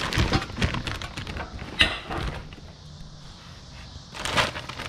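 Clear plastic bag crinkling and rustling as a boxed cast-aluminium oil pan is handled and lifted out of its cardboard box, with one sharp knock about two seconds in. It goes quieter for a moment, then crinkles again near the end.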